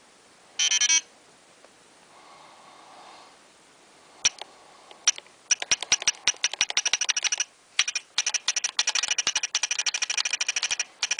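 Planet Eclipse Ego 09 electronic paintball marker being fired rapidly in training mode, its solenoid clicking in fast strings of about ten shots a second. A brief electronic tone sounds just under a second in.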